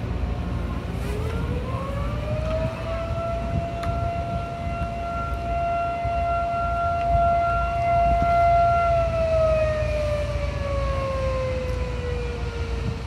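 Volunteer fire company's alarm siren winding up about a second in, holding one steady wailing pitch for several seconds, then slowly winding down near the end: the signal that calls volunteer firefighters to the station.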